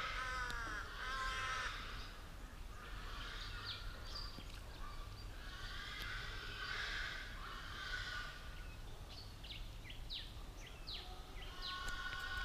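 A pig squealing in long, wavering cries again and again while being slaughtered for meat, with short bird chirps in between.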